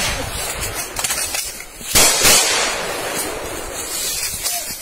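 Gunfire in forest: a shot near the start and a loud one about two seconds in, each followed by a long echoing tail.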